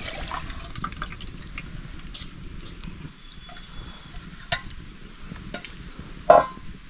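Food frying in a pot while it is stirred, with the utensil scraping and clicking against the pot, and a louder knock near the end.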